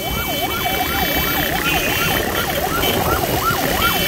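Electronic yelp siren of the EMF sidecar ambulance motorcycle, its tone sweeping rapidly up and down about three times a second, over motorcycle engine and street traffic noise.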